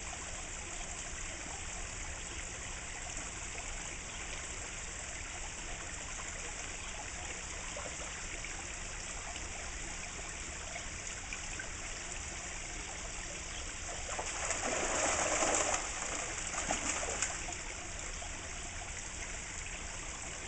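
Steady trickle of a pond fountain spout falling into the water. About two-thirds of the way through, spawning koi thrash at the surface in a burst of splashing lasting about two seconds, followed by a couple of smaller splashes.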